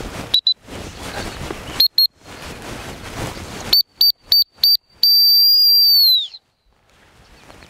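Dog-training whistle: a short toot, a pair of toots, then four quick toots, then one long blast of about a second that drops in pitch as it ends. The short toots are the turn signal that tells a quartering upland dog to change direction.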